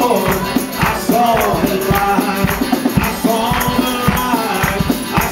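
A small live country gospel band: a man singing with acoustic guitar strumming and a drum kit keeping a steady beat.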